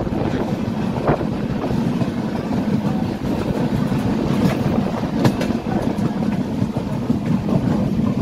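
Passenger train running at speed, heard from the moving coach: a steady rumble of wheels on rails with a few sharp clicks over the rail joints.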